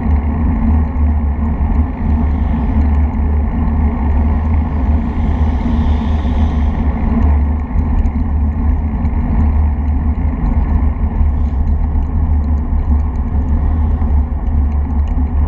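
Steady wind buffeting on a bicycle-mounted camera's microphone, mixed with tyre noise on tarmac. Traffic overtakes, with a passing vehicle's hiss swelling about five to seven seconds in.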